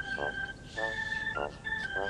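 Organ-toned music: a held high note over a short chord that repeats about twice a second.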